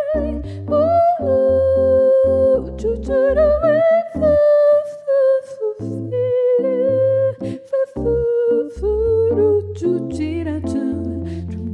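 A woman's voice humming a slow wordless melody with vibrato over piano accompaniment, the piano repeating low bass notes beneath it.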